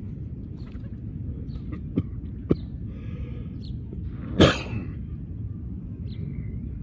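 A steady low outdoor rumble with two sharp clicks about two seconds in, then one short, loud, cough-like burst about four and a half seconds in.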